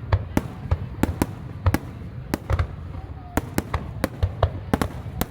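Aerial fireworks going off in a rapid, irregular volley, several sharp bangs a second over a low rumble.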